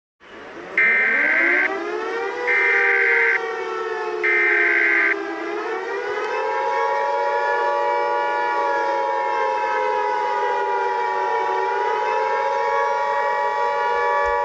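Emergency Alert System tones over a civil-defense siren. The siren winds up from the start and then wavers slowly up and down. Three one-second bursts of SAME header data tones sound about a second apart over it, and from about six seconds in the steady two-tone EAS attention signal holds over the siren.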